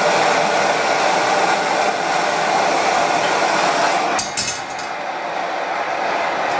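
Pressurized liquid-fuel camping stove burning, a steady, noisy rushing like a hair dryer. About four seconds in, a few metal clinks as a steel wok is set on the burner, after which the noise is slightly lower.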